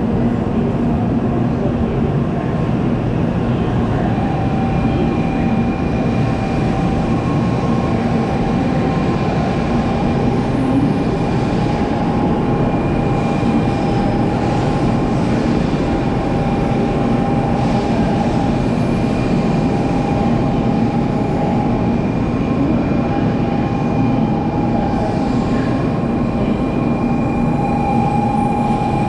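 N700-series Shinkansen 'Sakura' train moving past close by at a platform: a steady rumble with a steady electric motor whine held on a few fixed tones.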